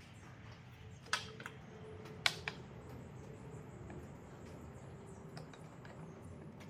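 Metal F-style bar clamp clacking as it is handled and fitted, with two sharp clicks about one and two seconds in and a few fainter ticks, over a low steady hum.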